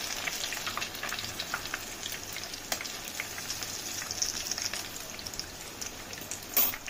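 Battered chicken lollipops shallow-frying in hot rice bran oil in a non-stick pan: a steady crackling sizzle with many small pops, and one louder crack near the end.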